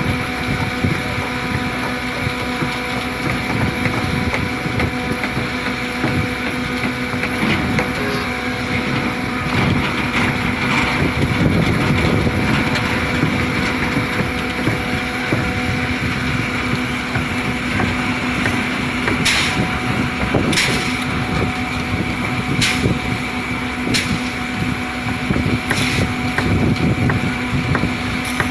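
Concrete mixer pump running steadily with a constant mechanical hum and rumble, with a few sharp knocks in the second half.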